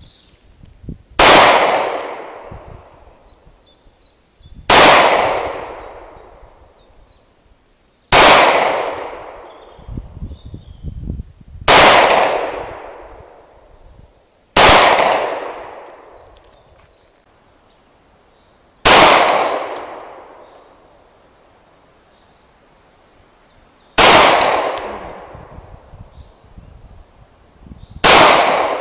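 H&K P30L pistol fired in slow single shots, eight in all, a few seconds apart. Each report is followed by a long echo that fades over a couple of seconds.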